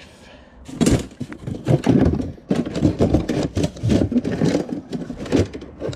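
Objects clattering and knocking as items are rummaged through and handled, in a rapid, irregular run of clicks and thuds.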